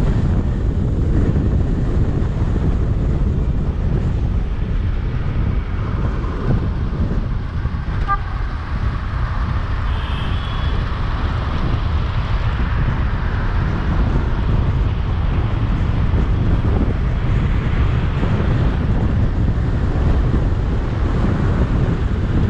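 Steady wind rumble on the microphone of a moving car, mixed with road and traffic noise.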